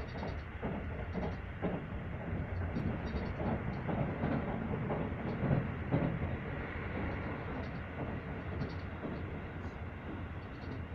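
Interior of a Keisei Evening Liner limited express train running at speed: a steady rumble of wheels on rail, with irregular clacks over rail joints that are loudest around five to six seconds in.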